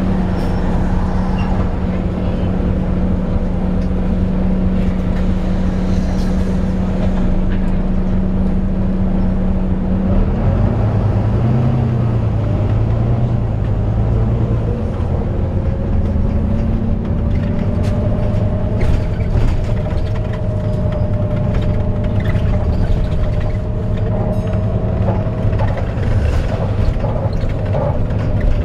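Volvo B9TL double-decker bus under way, heard from inside: the engine running with the hoover-like whine of its cooling fan. The low drone changes note about ten seconds in, and then a higher whine rises slowly.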